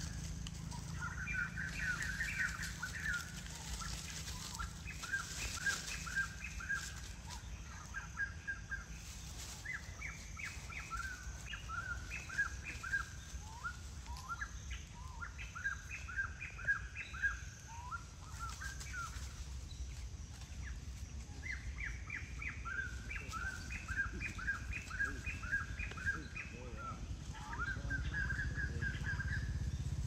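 A bird calling in runs of short, quick chirps, several notes a second at a higher and a lower pitch, with short pauses between runs.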